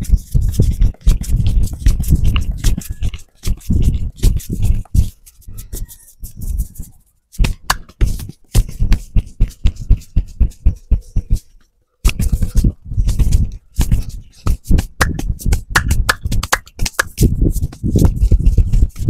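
Hands tapping, patting and slapping rapidly on a man's scalp and hair during a head massage, in quick rhythmic runs of dull thumps with a brushing of hair, pausing briefly twice.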